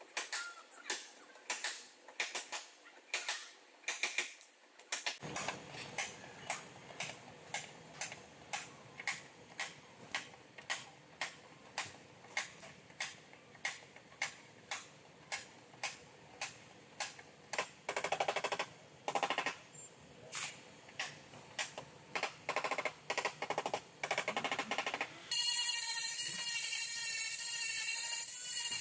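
Repeated light taps, about two a second, then near the end a steady machine whine with several fixed tones starts abruptly, like a power tool running.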